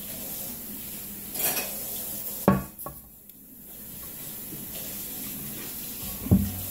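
Noodle liquid pouring from a pot into a ceramic bowl, ending in a loud clunk as the pot is set down about two and a half seconds in. A second sharp knock comes near the end.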